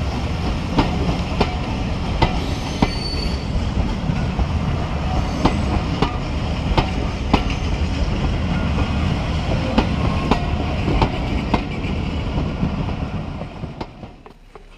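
Railway passenger coaches rolling past at close range: a steady rumble of wheels on rail, broken by sharp irregular clicks as the wheels cross rail joints. It fades quickly near the end as the last coach passes.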